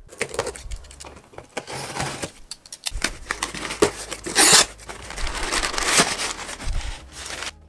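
A cardboard shipping box being opened by hand, its flaps pulled open, then paper packing rustling and crinkling as hands dig into it. The crinkling is loudest in the second half.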